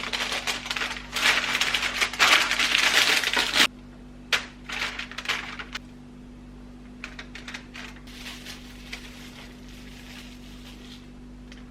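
Kitchen food-preparation handling sounds over a steady low hum: a loud crinkling, crackling rustle for about three and a half seconds that stops abruptly, then scattered light clicks and taps.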